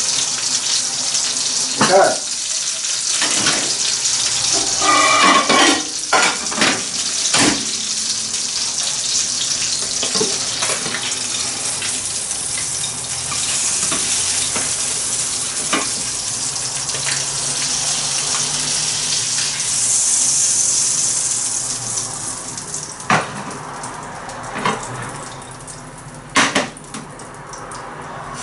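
Brill fillet frying in butter in a frying pan, a steady sizzle that flares up briefly about twenty seconds in and dies down near the end. Clinks, scrapes and sharp knocks of a spatula against the pan and plate come through it, most in the first several seconds and again near the end.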